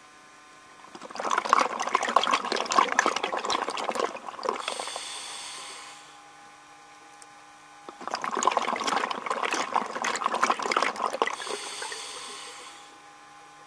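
Scuba diver breathing underwater through a regulator, twice: each breath a long burst of bubbling as the exhaled air rushes out, followed by a short hiss.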